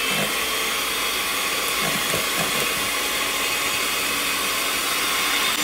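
VonShef electric hand mixer running steadily, its twin beaters whisking double cream and honey in a plastic tub, with a steady high motor whine over the whir. The cream is being whipped toward soft peaks.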